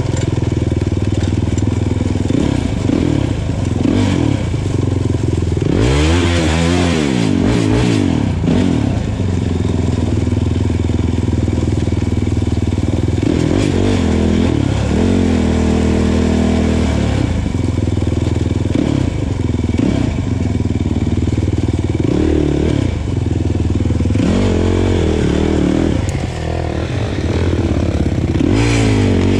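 Kawasaki KFX 450R quad's single-cylinder four-stroke engine running while riding, the revs rising and falling with the throttle, with sharp rev-ups about six seconds in and again near the end.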